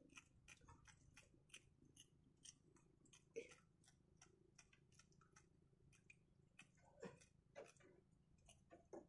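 Faint, irregular small clicks and rustles of hands working a live bait fish onto a hook and handling the fishing line, a louder click about three seconds in and a few more near the end.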